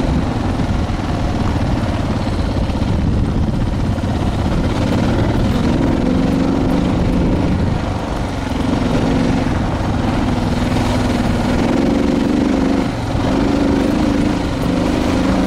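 Suzuki DR650's single-cylinder four-stroke engine running while the motorcycle rides along a dirt road, its pitch rising and falling with the throttle from about five seconds in.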